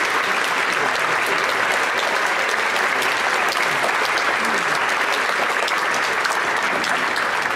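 Audience applauding: a large crowd clapping steadily throughout.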